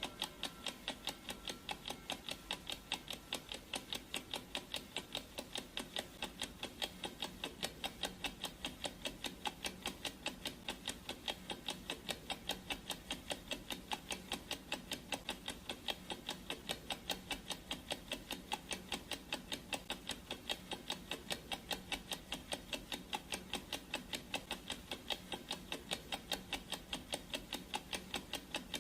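Clock ticking sound effect: a fast, even run of sharp ticks, several a second, steady throughout.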